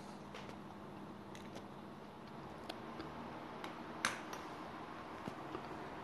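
Quiet room tone: a faint steady hum with a few light, scattered clicks, the loudest about four seconds in.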